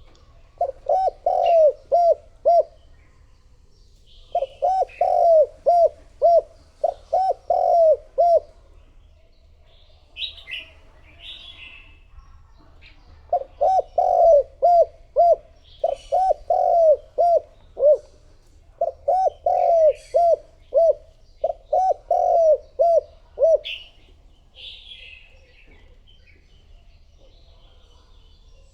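Spotted dove cooing: loud bouts of quick, repeated coos, four or five notes to a phrase, broken by pauses of a few seconds. It is the male's calling coo used as a lure for wild doves. Fainter, higher chirps of small birds come in the gaps.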